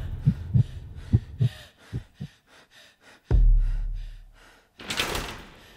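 Film score sound design: three pairs of soft, low, heartbeat-like thumps, then a deep boom about three seconds in that slowly fades away. A sharp gasp comes about five seconds in.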